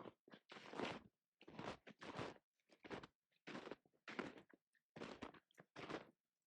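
Footsteps on a walk: a steady run of short scuffing steps, roughly two a second, with brief silences between them.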